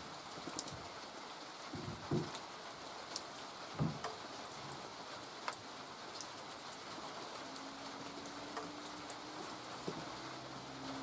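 Steady light rain falling, with scattered drips ticking on nearby surfaces, and a couple of dull knocks of split firewood being handled about two and four seconds in. A faint low hum comes in past the halfway point.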